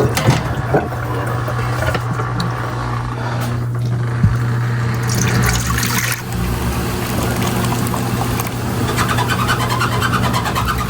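Steady low drone of a car driving, heard from inside the cabin, with a few clicks near the start and a single knock about four seconds in.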